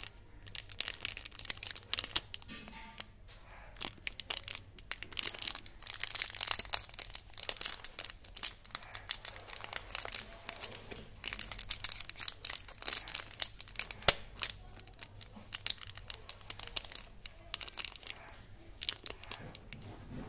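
A small foil-lined plastic candy sachet being crinkled and squeezed between the fingers, giving irregular bursts of crackling that are busiest in the middle stretch.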